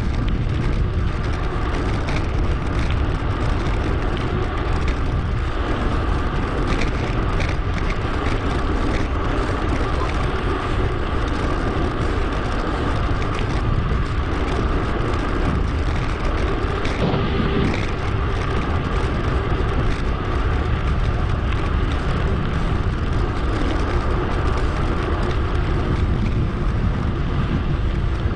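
Steady wind rushing over an action camera's microphone on a moving bicycle, a heavy low rumble with tyre and road noise mixed in.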